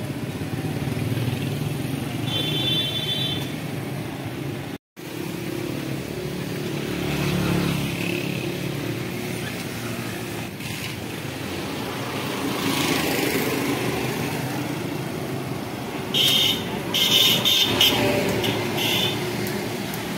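Street traffic noise with motorcycles running by, broken by a sudden brief silence about five seconds in. Near the end there are a few short, sharp high-pitched sounds.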